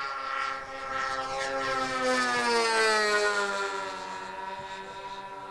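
Twin OS 46AX glow engines of an RC model racer running fast during a low pass. The pitch drops steadily as it goes by, loudest about halfway through, then the engines hold a lower, quieter note as the plane flies off.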